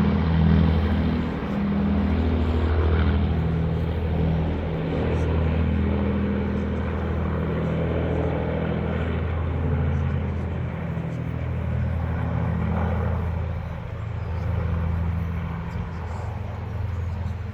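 Avro Lancaster bomber's four Rolls-Royce Merlin piston engines droning steadily as it flies over, easing off slightly near the end.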